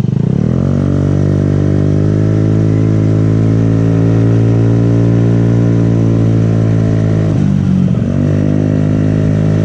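Motorcycle engine under way: the engine note rises as it speeds up, holds steady, then dips briefly and climbs again about seven and a half seconds in.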